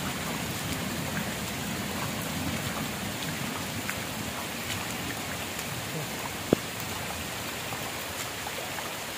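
Steady rain falling on shallow floodwater and grass, with a single sharp click about six and a half seconds in.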